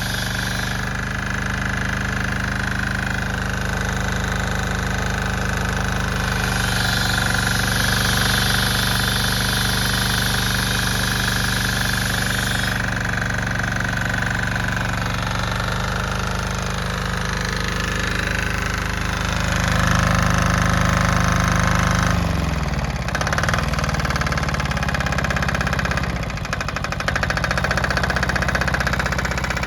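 Yanmar diesel engine running steadily, with a knocking diesel beat. Its speed dips and recovers a little over two-thirds of the way in, and the sound drops briefly again shortly after.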